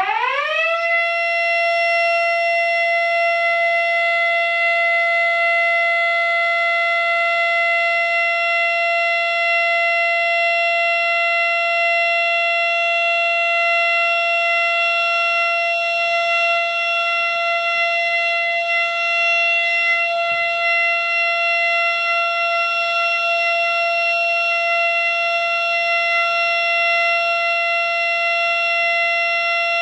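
Miniature 3D-printed Fedelcode Model 7 siren sounding a steady alert tone. It winds up to full pitch within about the first second, then holds one loud, unwavering tone.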